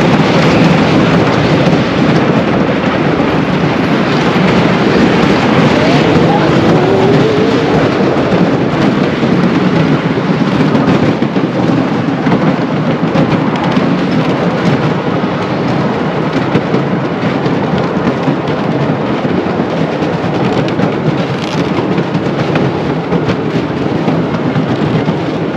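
1920 L.A. Thompson Scenic Railway wooden roller coaster train running along its track: a loud, continuous ride noise from the wheels on the track.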